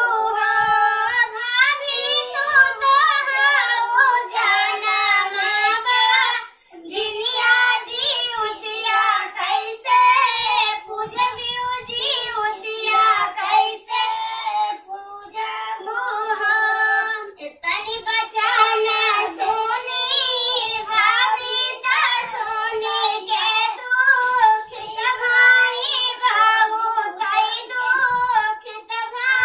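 A high voice singing a Bhojpuri Jitiya folk song (Jitiya geet) with no accompaniment, in long held, wavering phrases, with a short break about seven seconds in.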